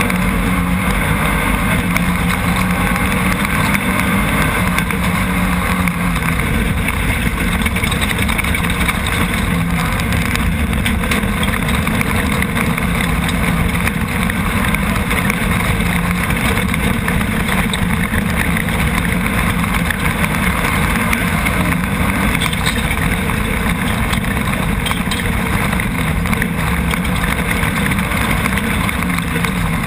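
Chenowth off-road race buggy's Nissan VQ35 3.5-litre V6 running hard at speed on a dirt track, heard on board as a steady, loud engine note mixed with dense rushing noise.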